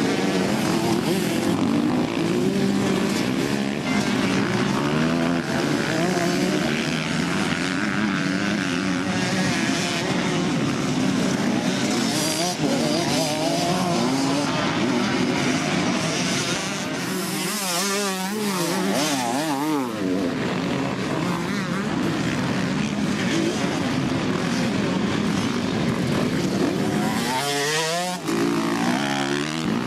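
Several motocross dirt bikes racing on a dirt track, engines revving up and down as the riders work the throttle. Twice, about two thirds of the way in and near the end, a bike passes close with a sharp rise and fall in engine pitch.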